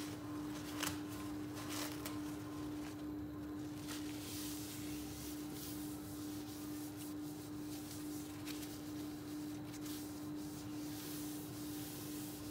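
A paper tissue rubbing and wiping across a countertop, with a few light clicks and taps, over a steady low hum.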